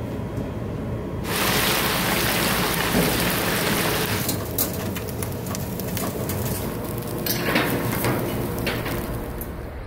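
Hot oil sizzling loudly as food deep-fries, starting about a second in. Later comes the quieter bubbling of a spicy braised fish stew boiling in a clay pot on a gas burner, with scattered pops.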